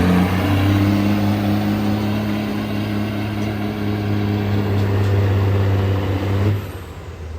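Pickup truck engine pulling under load at a truck pull, held at steady high revs, then dropping away about six and a half seconds in.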